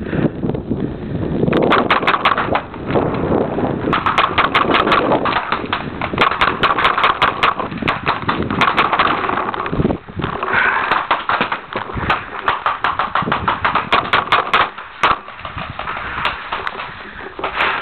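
Paintball markers firing in fast strings of sharp shots, several a second, with a short break about ten seconds in.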